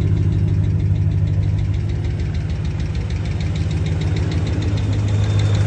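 2009 Dodge Ram 1500's 5.7 Hemi V8 idling steadily, with a faint, fast, even ticking over the low hum, after a no-start blamed on a bad fuel pump. The owner judges that it sounds good.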